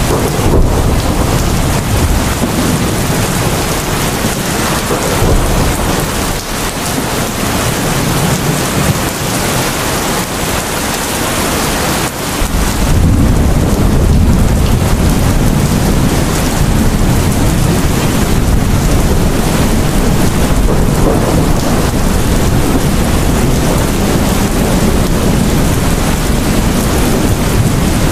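Heavy rain pouring down steadily, with a deep thunder rumble that swells in about halfway through and stays loud.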